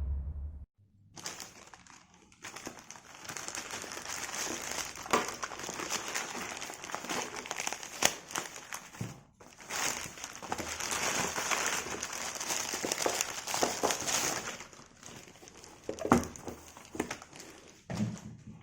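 Packaging being crinkled and rustled as a parcel is unwrapped, a continuous crackly rustle with many small clicks and snaps, briefly pausing about halfway through.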